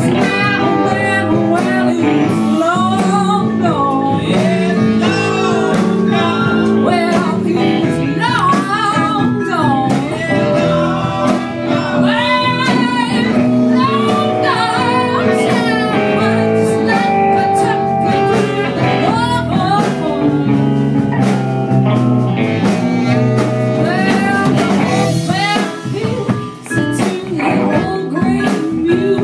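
A blues band playing live, with a lead line of bending notes over the steady band.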